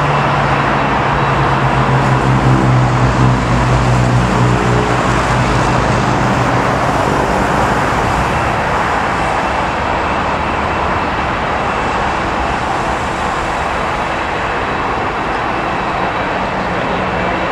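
Road vehicles passing close by, one engine's hum strongest in the first seven seconds and then fading, over a steady rushing roar that fits a jet airliner climbing away after take-off.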